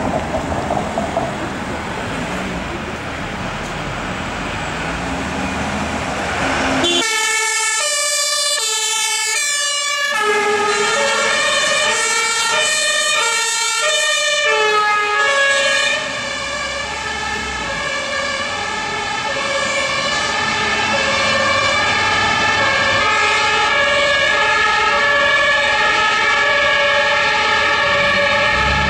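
Traffic and engine noise, then, suddenly about seven seconds in, German two-tone fire-service sirens (Martinshorn) from emergency vehicles on a run. Two sirens alternate between their high and low notes out of step with each other, about twice a second.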